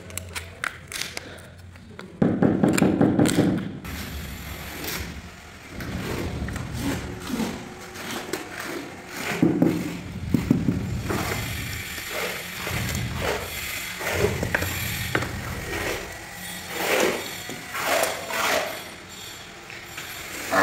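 Clicking, knocking and scraping of plastic tile-leveling wedges and clips and of hands working on large porcelain floor tiles as they are set, in an uneven run of small sharp clicks with a louder low scraping stretch a couple of seconds in.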